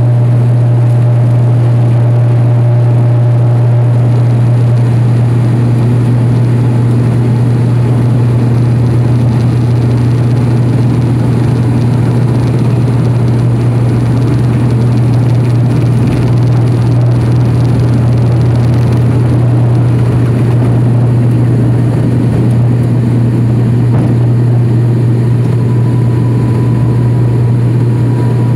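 Turboprop airliner at takeoff power heard from inside the cabin beside the engine: a loud, steady low propeller hum over rushing engine and air noise, through the takeoff roll and climb-out.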